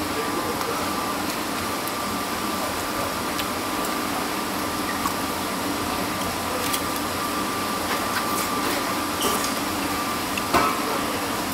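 Steady room hum of ventilation with a thin, faint high whine running through it. A few light clicks come over it, with a sharper one near the end as a plastic fork works in a foam takeout container.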